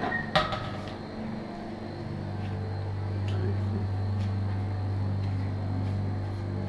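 A single sharp metallic clink with a short ring as a stainless-steel chafing dish is handled, followed by a steady low hum with a few faint ticks.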